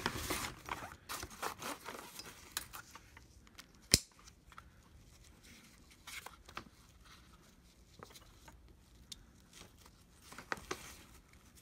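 Nylon webbing of an Ozark Trail utility wagon's tailgate strap being worked through its plastic buckle, with the wagon's fabric rustling under the hands and scattered small clicks. One sharp click comes about four seconds in.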